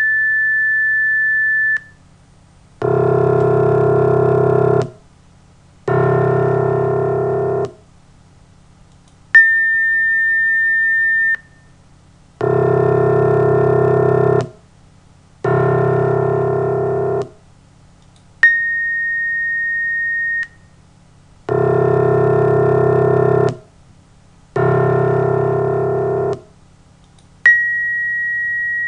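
Computer-generated pure sine tones alternating with a synthesized tone. Four times over, a single sine tone near 2 kHz sounds for about two seconds with a click at its onset, a little higher in pitch each time: one newly sampled partial. Each is followed by two 2-second playbacks of a sum of pure tones built to replicate a grand piano's low C1 note, a steady, buzzy low tone with many partials and no piano-like decay.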